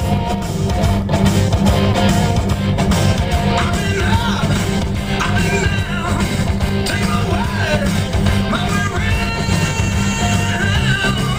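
Rock song with a singer and electric guitar playing on a car radio inside the moving car.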